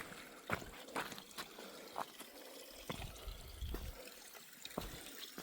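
A small stream trickling, with irregular footsteps and knocks as someone crosses it on foot.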